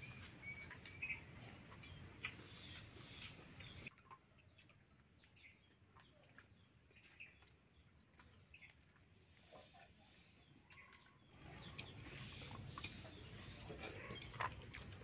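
Faint outdoor ambience with scattered bird chirps and chicken clucks. The background hiss drops away about four seconds in and returns near the end.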